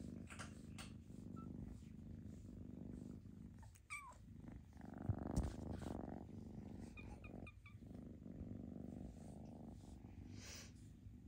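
Kitten purring steadily while being stroked, with a loud bump about five seconds in.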